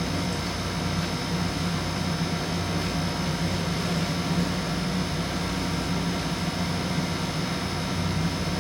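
Steady low mechanical hum with faint steady higher-pitched tones above it.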